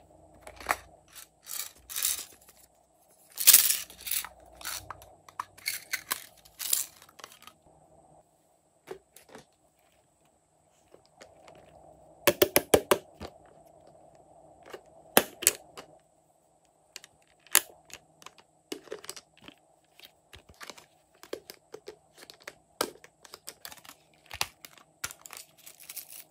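Hands handling a plastic toy play set: crinkly rustling and clicks in the first few seconds, then, after a lull, sharp plastic clicks and clacks as the case is opened and small parts are worked out of it.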